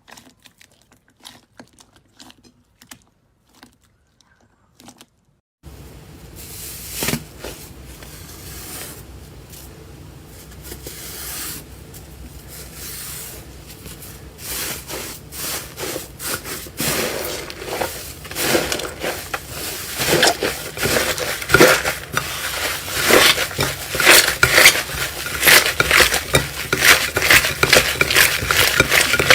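Slime being handled and pressed by hand: faint scattered clicks for the first few seconds, then, from a sudden change, a steady hiss under dense irregular crackling and popping that grows louder toward the end.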